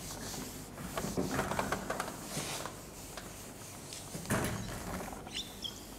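Handheld whiteboard eraser rubbed across a whiteboard in several wiping strokes, with a brief squeak near the end.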